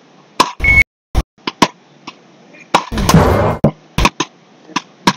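Wooden beach rackets (matkot) striking a small rubber ball in a fast rally: a string of sharp cracks at irregular intervals, roughly one every half second to a second, with a louder, longer noisy burst about three seconds in.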